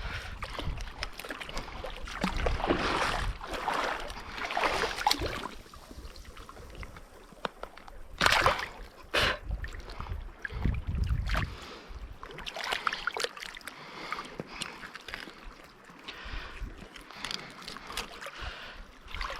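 Water lapping and splashing, with gusts of wind on the microphone and two sharp clacks about eight and nine seconds in.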